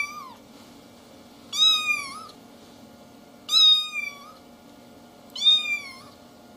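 Very young kitten mewing: three high, thin mews about two seconds apart, each dropping in pitch at its end, after the tail of one more at the very start.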